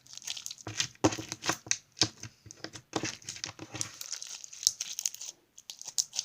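Slime being squished and stretched by hand, making irregular crackly pops and clicks.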